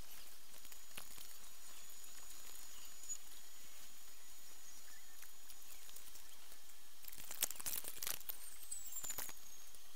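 Steady faint hiss with a few sharp clicks and ticks in the last three seconds.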